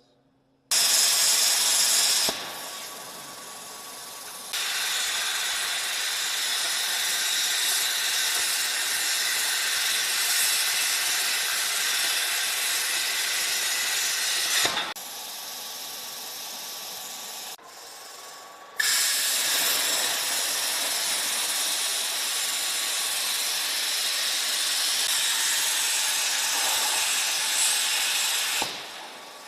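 Plasma cutter cutting the fog-light openings in a steel bumper: a loud, steady hiss of arc and air that runs in long passes, breaking off for a few seconds in the middle and stopping just before the end.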